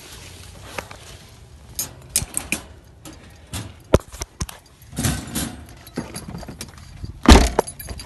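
Wire bird travel cage rattling and clicking as a macaw is handled into it, with scattered sharp knocks and one heavy thump near the end.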